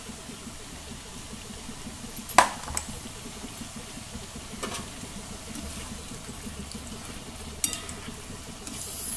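Shankarpali dough pieces deep-frying in hot oil in a kadai: a steady sizzle with a few sharp clicks, the loudest about two and a half seconds in. Near the end a metal spoon stirs the oil and the sizzle grows louder and hissier.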